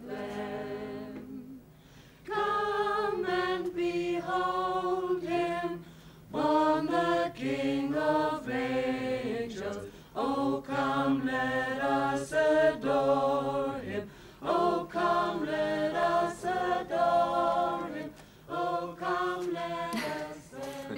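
A small group of carolers singing a Christmas carol together a cappella, in phrases of three or four seconds with short breaks between them.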